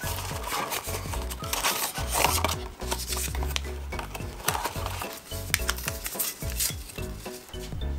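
A cardboard tea box and a paper tea-bag sachet being handled and opened by hand: repeated short papery rustles, crinkles and clicks. Soft background music plays underneath.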